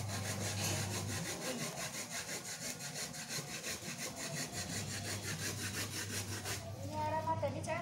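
A rapid, even scraping rhythm of about six strokes a second that stops about a second before the end, followed by a high, gliding voice.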